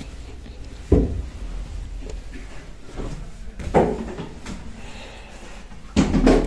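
Dull knocks and rustling from clothes and hangers being handled as a closet is emptied, with the handheld phone bumped about: one knock about a second in, another near four seconds, and a longer clatter near the end.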